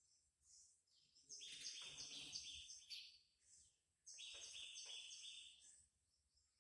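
A small bird calling in two quick runs of short, high chirps: about five notes a little over a second in, then four more around four seconds in.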